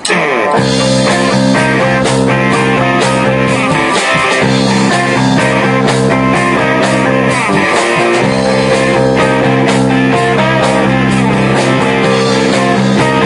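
Live rock band playing loud: electric guitars, bass and drum kit, with the full band coming in just after the start.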